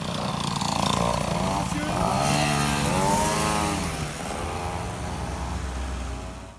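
Several Motobécane Mobylette 50 cc two-stroke mopeds riding past one after another, each engine's buzz rising and then falling in pitch as it goes by.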